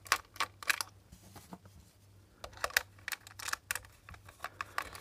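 Small precision screwdriver undoing screws from a plastic heater casing: a run of light clicks and ticks as the driver tip seats and turns, a few at first, then after a short pause a quicker run.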